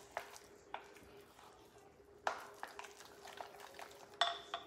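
Spatula stirring a thick cream cheese and shredded chicken dip in a glass bowl: soft, irregular squishes and scrapes against the glass, with a slightly stronger knock a little past the middle.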